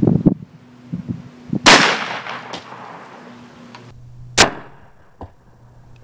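.410 shotgun firing a cut shell: a loud blast about 1.7 s in with a long echoing tail, then a second short, sharp report about 4.4 s in.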